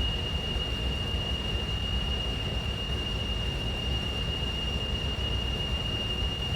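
Air-duct and vent ambience: a steady low rumble of moving air with a constant high-pitched tone riding over it.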